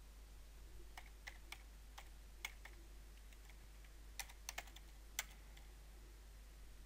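Faint typing on a computer keyboard: about ten separate, irregular keystrokes, the last and loudest about five seconds in.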